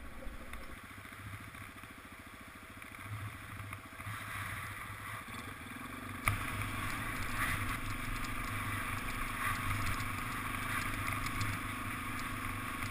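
Dirt bike engine running at low speed while riding, growing louder and busier about five to six seconds in, with a single sharp click near the middle.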